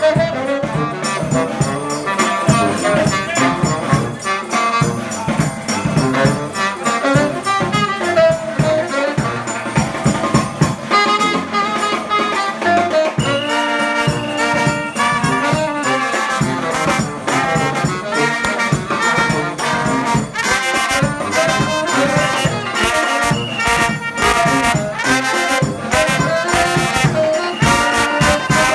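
A New Orleans–style brass band playing live, with trumpet, trombone and tuba over a steady drum beat.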